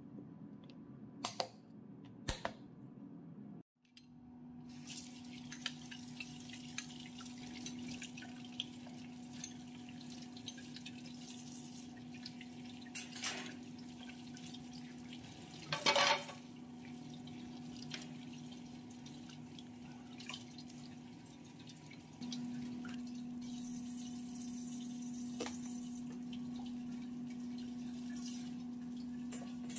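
Kitchen tap running into a stainless steel sink while a silicone spatula and utensils are rinsed by hand, with scattered clinks and one louder clatter about halfway through. The flow grows louder later on. At the start, a couple of clicks as the clip-lock flaps of a plastic lid snap onto a glass container.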